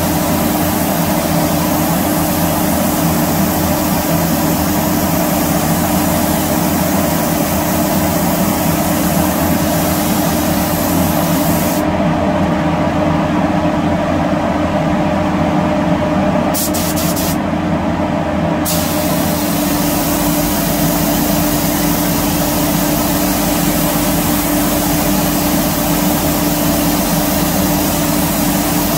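Spray gun hissing as it mists silvering chemicals onto a chrome-effect part, over a steady machine hum. The spray stops for about five seconds near the middle, gives one short burst, then starts again and runs on.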